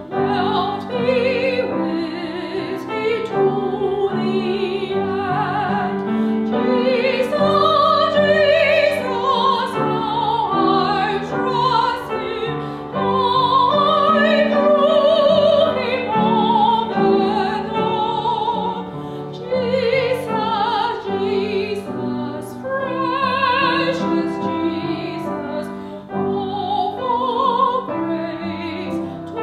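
A woman singing a solo in a trained, classical style, holding long notes with strong vibrato over instrumental accompaniment.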